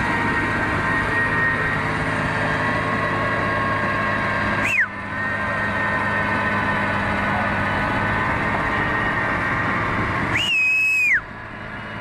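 Tracked excavator's diesel engine running steadily close by. A short, sharp whistle comes about five seconds in, and a longer held whistle near the end falls off in pitch as it stops.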